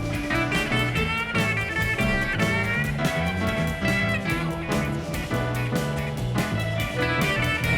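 Background music: a guitar-led track with a steady beat and a bass line.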